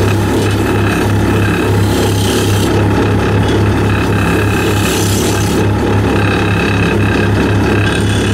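Wood lathe running with a steady motor hum while a flat turning tool scrapes the spinning wooden blank. The rasping cutting noise comes and goes as the tool works the wood.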